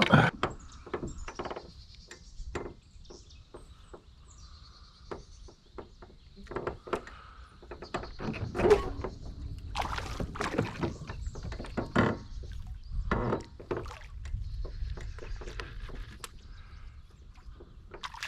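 Scattered knocks and clicks of gear being handled in a small fishing boat, with wind rumbling on the microphone, strongest through the middle of the stretch.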